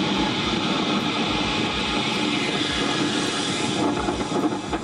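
Steady rushing noise of surf and wind at a shore, with a low rumble pulsing underneath.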